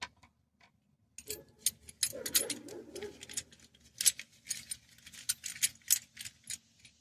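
Quick, irregular metallic clicking and rattling of a universal oil filter wrench being handled and worked, starting about a second in.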